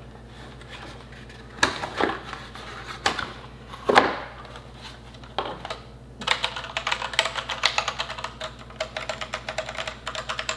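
Keys of a Hexgears Impulse mechanical keyboard being pressed: a few single clicks at first, then from about six seconds in a fast run of clicky key presses lasting about four seconds.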